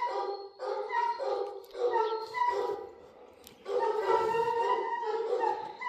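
A dog whining in a string of short high cries, then one longer drawn-out whine of about two seconds near the end.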